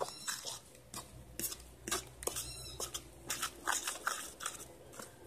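Fork stirring wet oat batter in a bowl, its tines clicking and scraping irregularly against the bowl.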